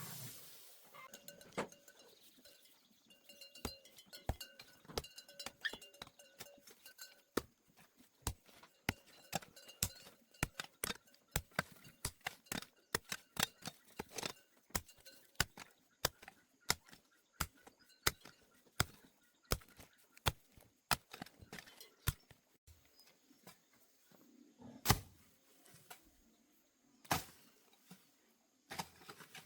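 Repeated chopping strikes of a hand tool, one to two a second at an uneven pace, each a short sharp thunk.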